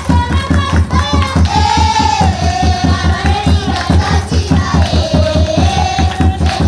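Children singing over a fast, steady drumbeat of about four to five beats a second, with one voice carrying a wavering melody through a microphone.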